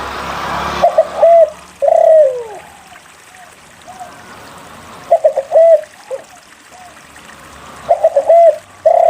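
A spotted dove (derkuku) cooing three times, each phrase a few quick short notes and a longer note that slides down. A brief rush of noise comes before the first phrase.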